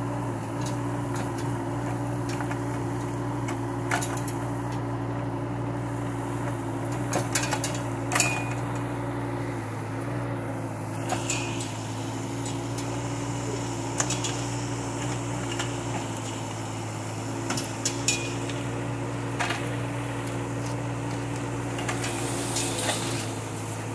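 Kubota K008 mini excavator's diesel engine running steadily, with sharp metallic clanks and knocks scattered through it as the steel bucket digs and pries at a bush's root ball.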